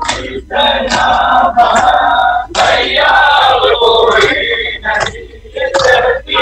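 A crowd of men chanting together, loud, in phrases of about two seconds with short breaks between them: a Muharram mourning chant sung during matam.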